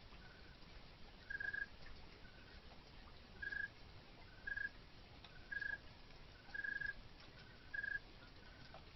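Rhythmic animal chirping: short chirps at one steady pitch, about one a second, with a second, fainter caller chirping in between, over a faint steady hiss.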